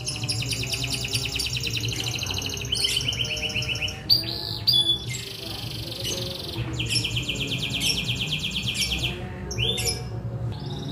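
Young domestic canary singing continuously: long, fast, high trills of repeated notes, one rolled phrase giving way to the next every second or two, with a few short separate notes about four seconds in. It is a young bird that has just come into full, steady song.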